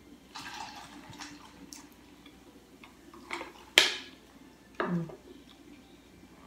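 Close-up eating sounds of spaghetti and meatballs: soft wet mouth and slurping noises and small clicks. A utensil clinks sharply on the plate a little before the four-second mark, the loudest sound. Just after it comes a short sound dropping in pitch.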